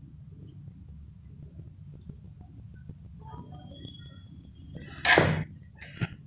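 A cricket chirping in a fast, even pulse, high-pitched. About five seconds in, a short loud rasping noise of the knife on the rolling board, followed a second later by a sharp click.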